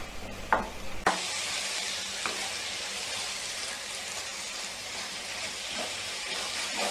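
Tender jackfruit thoran sizzling in a frying pan: a steady hiss with faint crackles. It starts about a second in, after a low hum and a couple of light clicks.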